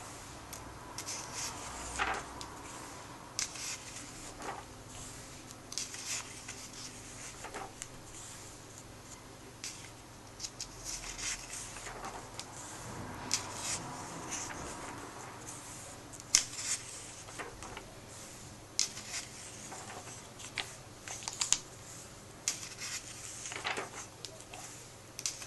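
Comic book pages being turned by hand, one after another: paper rustling and flapping, with a light slap as each page is laid flat, at irregular intervals a second or two apart.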